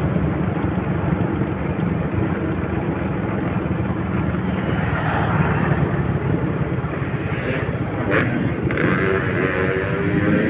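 Honda Supra motorcycle riding along at road speed, heard from the rider's seat: its engine runs under a steady wind rush on the microphone. In the last couple of seconds an engine note rises in pitch.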